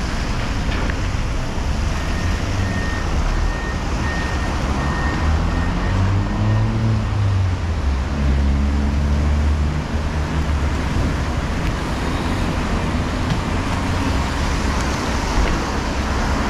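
Road traffic noise, with a motor vehicle's engine passing about six to ten seconds in. From about two seconds in, a run of short, evenly spaced high beeps sounds for a few seconds.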